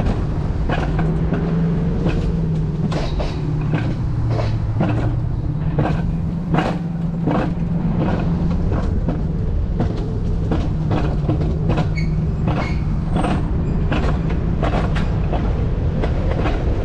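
Mountain coaster sled running down its steel-tube track: a steady rolling rumble and hum from the wheels, with frequent sharp clacks.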